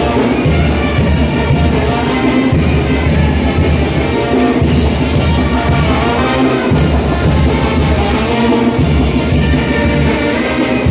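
A Mexican brass band playing chinelo dance music, horns carrying the tune over a steady, even beat.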